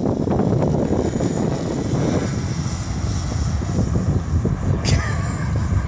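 Wind buffeting the microphone with a steady rumble, over the faint high whine of a model airplane's motor in flight.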